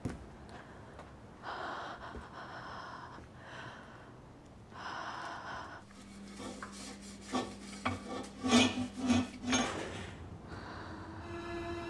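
Slow, heavy breathing in several long breaths, then dishes and utensils clinking and clattering in a kitchen sink. A low held music tone comes in near the end.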